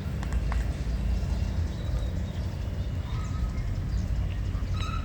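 Steady low rumble of wind and road noise while riding a bike, with a few faint clicks and short chirps over it.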